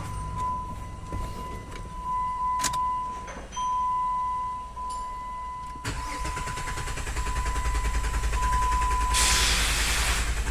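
Dodge Nitro's starter cranking the engine over for about four seconds, from a little past halfway, getting louder without the engine catching: a crank-but-no-start condition. A steady high electronic tone sounds on and off throughout.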